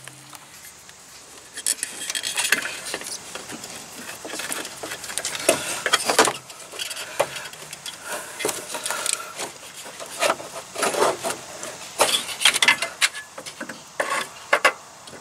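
Replacement alternator being worked down into a 2004 Toyota Tacoma 2.4 L four-cylinder's engine bay: irregular metal clinks, knocks and scraping as it is shifted and bumped into position. The sounds begin about a second and a half in.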